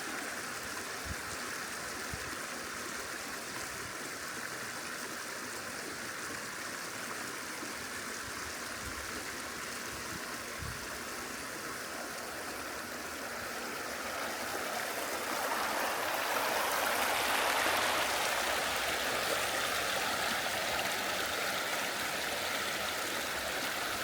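Mountain stream running, a steady rushing water sound that swells louder for a few seconds past the middle.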